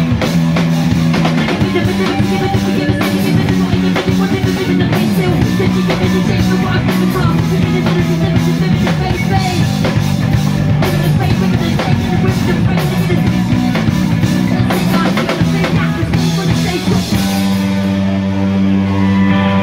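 Live rock band playing: drum kit, bass guitar and electric guitar, with a singer on the microphone. About three-quarters of the way through the drums drop out, leaving a held guitar chord ringing over the bass.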